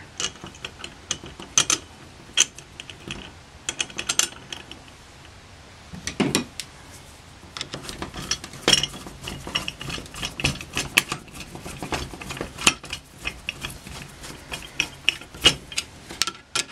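Screwdriver driving the two throttle-body screws into a Rochester Monojet one-barrel carburetor: irregular metallic clicks, taps and scrapes of the screwdriver and screws on the metal casting.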